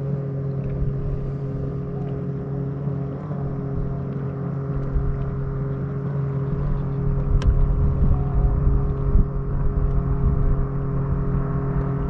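A motor running at a steady, unchanging pitch, with low rumbling wind noise on the microphone that grows a little in the second half. A single sharp click about seven seconds in.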